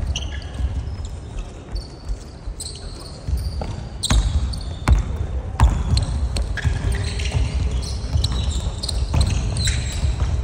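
Basketball bouncing on a hardwood gym floor as a player dribbles, the sharpest bounces coming about four to six seconds in, with short high sneaker squeaks on the court during play.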